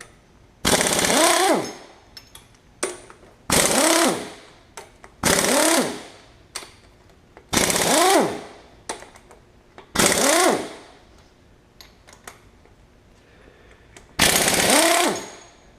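Impact wrench loosening cylinder head bolts on a Chevy small-block V8: six short hammering bursts, each with a motor whine that rises and then falls, separated by pauses of one to three seconds.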